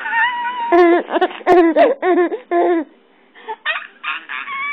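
A baby cooing and squealing happily in a string of short, high-pitched calls, each rising and falling in pitch.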